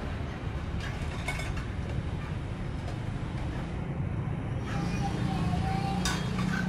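Steady low mechanical rumble, with a few faint clicks.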